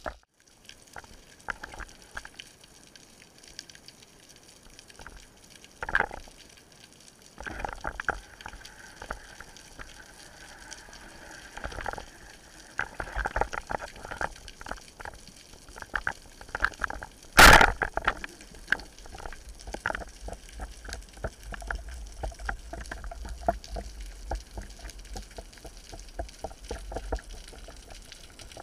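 Underwater ambience during a spearfishing dive: water moving and crackling, with irregular clicks. There are a few denser patches and one loud, sharp knock about two-thirds of the way through.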